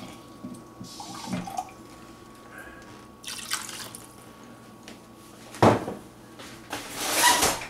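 Water poured from a glass measuring cup into a rice cooker's pot, a short splash about three seconds in among small drips. A sharp knock comes just before six seconds, and a burst of noise follows near the end.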